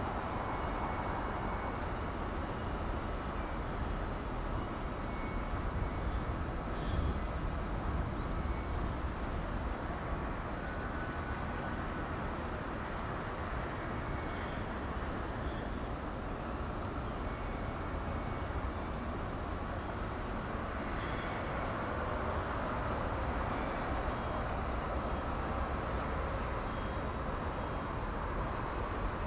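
Steady outdoor background rumble, with faint scattered clinks and short high tones.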